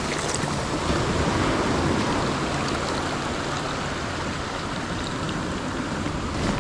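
Ocean surf washing onto the beach: a steady rush of breaking waves and foam.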